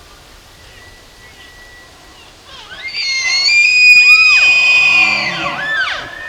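Bull elk bugling: a whistle that rises about two and a half seconds in, holds high for a couple of seconds, then falls away, with low grunting chuckles under it near the end.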